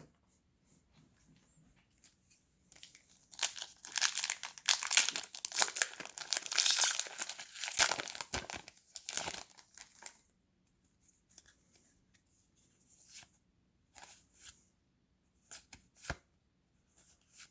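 Foil booster pack wrapper being torn open and crinkled for several seconds, followed by a few short soft clicks and rustles of trading cards being handled.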